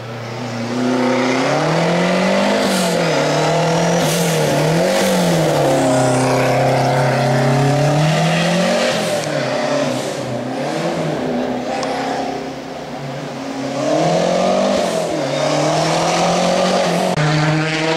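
Renault 5 rally car engine driven hard, its pitch climbing and dropping several times as it accelerates, shifts gear and lifts off for the bends, with several sharp cracks along the way.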